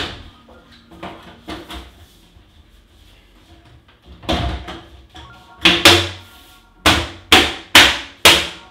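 Plastic front panel of an Anidees AI5S PC case being fitted and pressed back onto the chassis. A sharp knock comes at the start and a couple of lighter knocks follow. After a scrape about four seconds in, a quick series of six loud, sharp knocks and snaps comes as the panel is pushed home.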